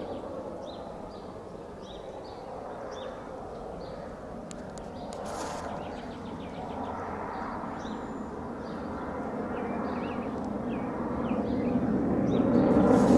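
Fighter jet rumbling overhead, a steady roar that grows louder toward the end as the jet comes closer. Small birds chirp over it.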